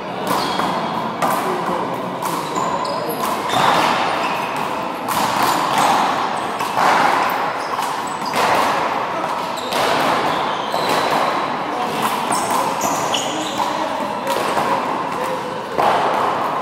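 Rubber handball slapped by hand and smacking off the wall and floor during a rally: repeated sharp smacks that ring on briefly in the hall.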